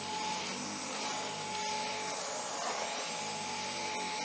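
Dyson Cyclone V10 cordless stick vacuum running on its lowest power setting: a steady whine over an even rush of air.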